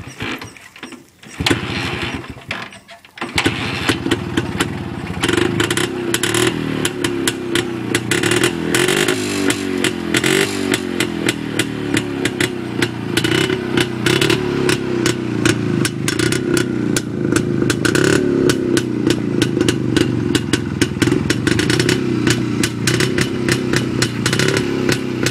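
Jawa 250 motorcycle's single-cylinder two-stroke engine being kick-started: a short first burst that dies, then it catches about three seconds in and keeps running with a rapid pulsing beat, the revs rising and falling.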